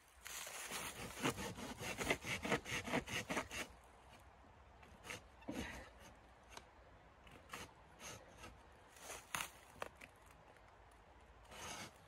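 Rapid rhythmic scraping strokes, about four a second, for the first three and a half seconds, then a few scattered single scrapes and knocks.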